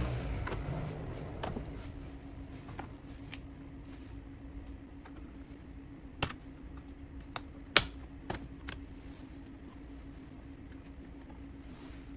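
Irregular sharp clicks and taps of small plastic parts being handled, with one louder snap a little past the middle, over a steady low hum.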